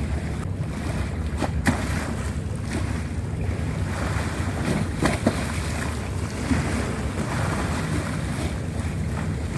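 Sea waves washing at the shore with wind buffeting the microphone in a steady low rumble, and a few brief clicks along the way.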